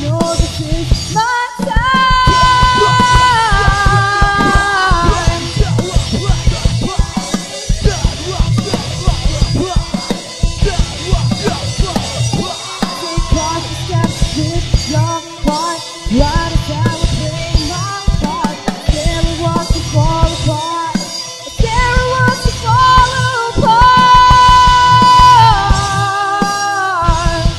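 Rock band playing live: a drum kit keeping a steady beat under electric guitars and bass. Long held lead notes that bend in pitch come in about two seconds in and again near the end.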